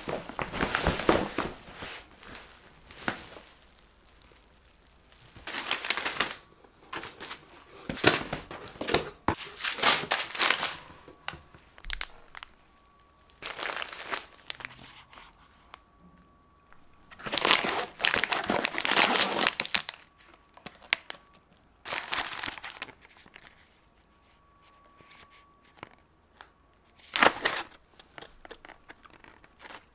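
Plastic packaging and bubble wrap crinkling and rustling in repeated bursts as packages are handled and unwrapped, with short quiet gaps between.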